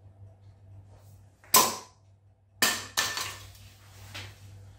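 A sharp pop of air as a stomp launcher fires a 3D-printed PLA glider, about one and a half seconds in. About a second later come two clattering knocks and a short rattle as the plastic glider hits the laminate floor and skids.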